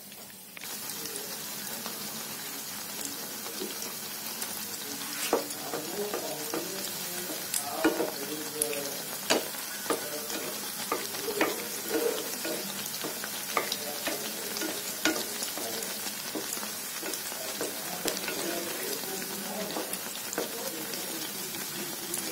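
Malpua batter sizzling as it fries in hot ghee in a frying pan. The steady sizzle begins about half a second in, with scattered sharp clicks and crackles over it.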